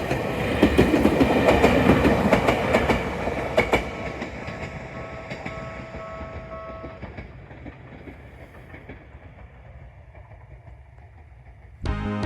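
Ueda Electric Railway 1000-series electric train passing over a level crossing, its wheels clicking over the rail joints, while the crossing's electronic Tokyu-type warning bell rings. The bell stops about seven seconds in, the train fades away, and music cuts in at the very end.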